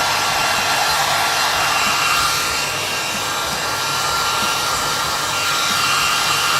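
Hand-held hair dryer running steadily on low speed: a rushing blast of air with a steady whine from its fan motor.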